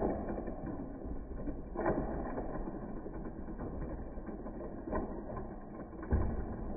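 Battery-powered Thomas the Tank Engine toy train running along plastic track, its small motor and gears running steadily, with a few louder knocks about two seconds in, around five seconds and just before the end.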